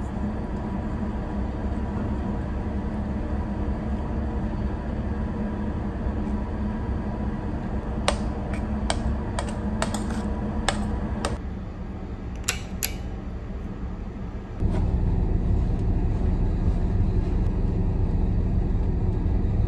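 Steady low drone of a ship's machinery, with a metal spoon clinking and scraping against a stainless steel pot several times as it stirs, from about eight to thirteen seconds in. The drone gets louder in the last few seconds.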